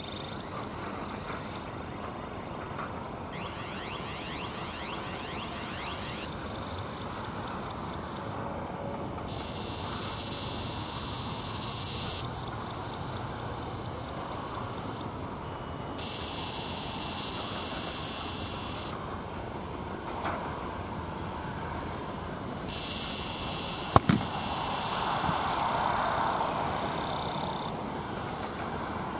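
Boeing 737-800's CFM56-7B jet engines at taxi power: a steady hiss and rumble as the airliner taxis. One sharp click comes near the end.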